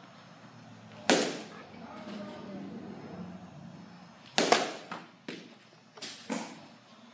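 Sharp cracks of a baseball bat hitting pitched balls in a batting cage: one about a second in, the loudest at about four and a half seconds, then two smaller knocks in quick succession near the end.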